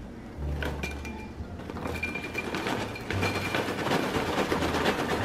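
Popped popcorn pouring from a paper microwave bag into a glass bowl, a dry rustling that grows heavier over the last couple of seconds, over background music with a repeating bass line.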